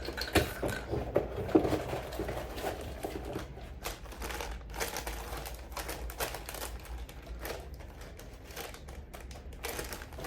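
Small plastic accessory bag being handled and opened: irregular crinkling and rustling with many small clicks, busier in the first few seconds.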